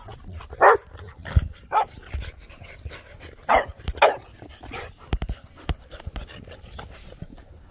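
Dogs play-fighting, giving a handful of short, sharp barks, the loudest about a second in and around three and a half to four seconds, with a few dull thumps between them.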